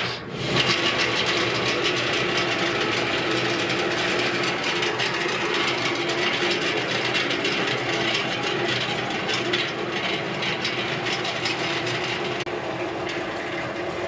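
An electric oil-spinner (centrifugal de-oiler for fried snacks) starts up and runs steadily. Its motor hums under a continuous fast rattle, and it reaches full speed within about a second.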